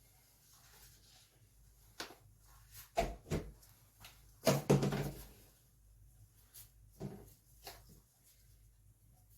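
Kitchen knife and pear pieces on a cutting board while pears are diced: a few irregular knocks and clatters, the loudest a heavier clatter about halfway through.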